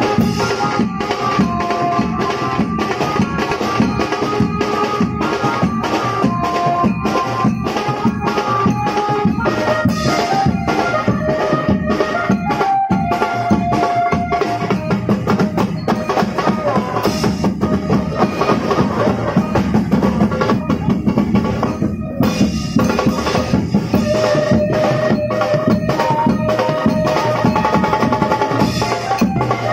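Street procession drum band playing a fast, steady, loud beat, with a stepping melody of held notes over the drums.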